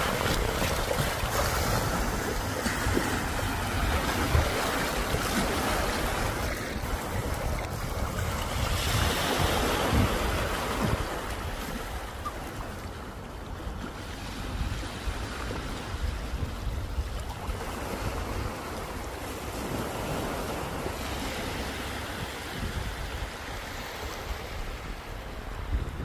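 Small sea waves lapping and washing over rocks and sand in shallow water, with wind buffeting the microphone. It is louder for the first several seconds and eases off a little before halfway.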